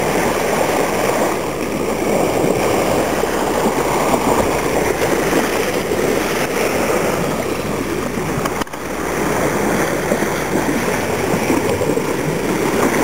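Water rushing and splashing along the bow of a Hanse 54 sailing yacht under way, a steady wash of bow-wave noise.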